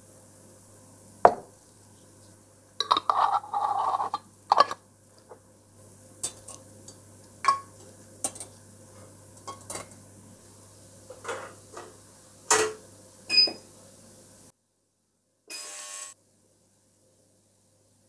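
Scattered clinks and knocks of small glass jars and a stainless steel wire basket being handled, with a denser rattle about three seconds in.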